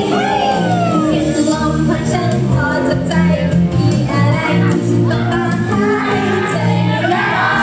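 Idol-group pop song playing loudly, with female voices singing over a steady bass line.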